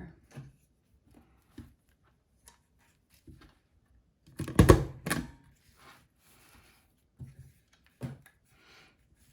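Scattered clicks, taps and light rustles of craft materials being handled while fringe is attached to a shirt, with a louder cluster of knocks about halfway through and another sharp knock near the end.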